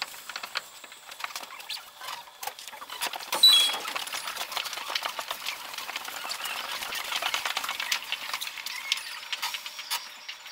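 Monorail cab and station sounds sped up fivefold into a fast chatter of clicks, crackle and squeaky chirps, as the train pulls into a station and stops. A sharp spike with a brief high squeak comes about three and a half seconds in.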